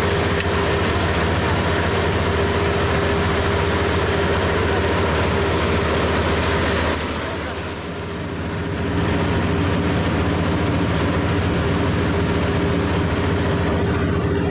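Combine harvester running steadily, a dense engine hum with several fixed tones over it. The sound drops in level for about two seconds around seven seconds in, then comes back.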